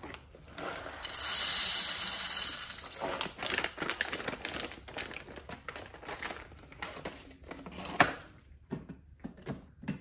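Coffee beans poured from a bag into the bean hopper of a DeLonghi La Specialista espresso machine, a rushing rattle for about two seconds, followed by scattered clicks and the crinkle of the bag being handled.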